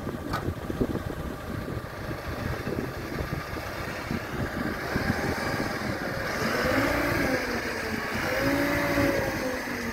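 Manitou MT1440 telehandler's diesel engine running. About halfway through it picks up, and a whine rises and falls in pitch as the boom is raised.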